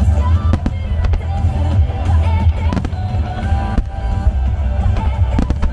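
Music-synchronised starmine fireworks display: several sharp firework bangs burst over a song with a heavy bass line playing through loudspeakers.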